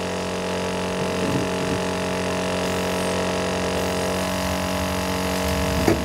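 Steady machine hum, unchanging in pitch.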